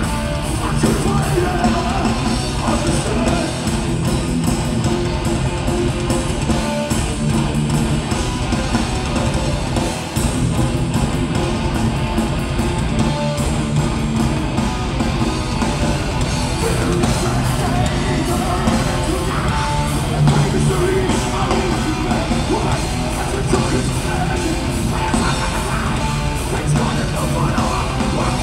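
Thrash metal band playing live, with distorted electric guitars and vocals, heard from among the audience.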